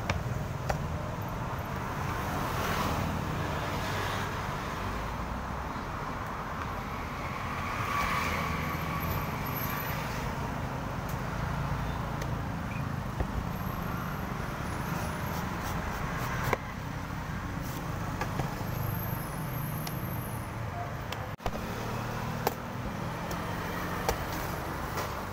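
Steady road traffic noise of motor vehicles going past, with a few short knocks from a knife and coconut being handled on a wooden cutting board.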